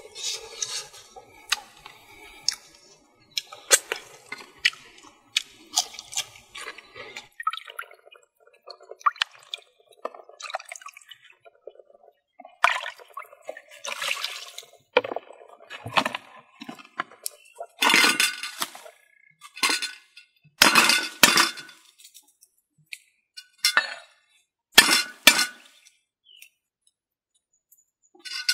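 A series of short food-preparation sounds: clinks and knocks of utensils and dishes, and water splashing and dripping as raw fish pieces are rinsed, with brief quiet gaps in between.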